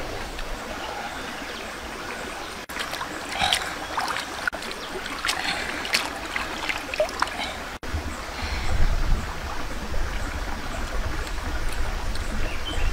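Water running over rocks in a shallow stream, a steady rushing, with scattered short clicks and rustles in the middle and a low rumble from about two-thirds of the way in.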